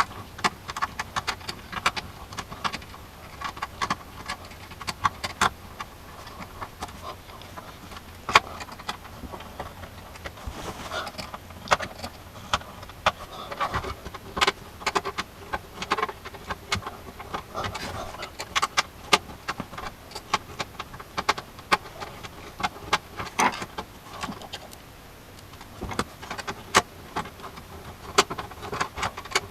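Irregular clicks, knocks and light metallic clinks of a computer power supply and case parts being handled and fitted into a PC case.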